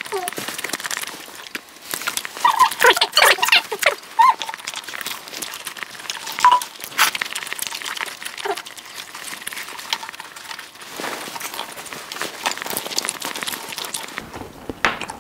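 Close-miked eating sounds: chewing and mouth noises over tteokbokki and fried snacks, with chopsticks clicking against plastic takeout trays. A cluster of short squeaky sounds comes about three seconds in, with single ones again later.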